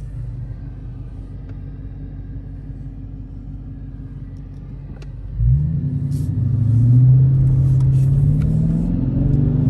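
Car engine heard from inside the cabin: a low steady hum while stopped, then about halfway through the engine note jumps and rises as the car accelerates away, dipping and climbing again near the end.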